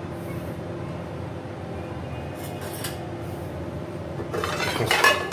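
Metal frying pan (tawa) knocking and scraping against the gas stove's metal pan support as it is lifted off, with a few light clinks about two and a half seconds in and a louder clatter near the end. A steady hum runs underneath.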